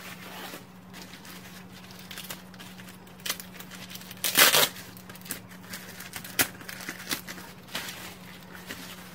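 Bubble wrap and plastic wrapping crinkling and rustling as hands pull a wrapped box about, in irregular crackles with a louder burst of rustling about four and a half seconds in.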